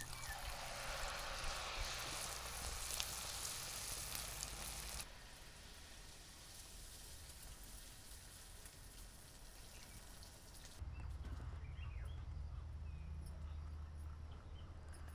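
Sel roti batter sizzling in hot oil as it is poured in a ring, cutting off abruptly about five seconds in. After that only faint background noise, with a low rumble near the end.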